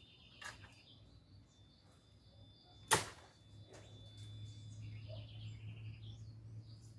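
Birds chirping, with one sharp knock about three seconds in; a low steady hum sets in just after it.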